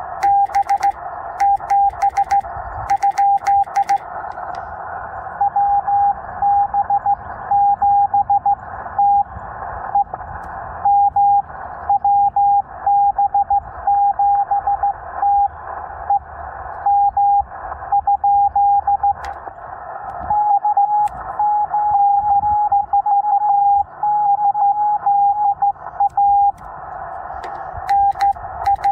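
Morse code (CW) on the 20-meter band from a Yaesu FT-891 transceiver: one steady tone keyed on and off in dits and dahs, in bursts of characters with short gaps, over radio band hiss. For a few seconds past the middle the tone sits slightly higher in pitch.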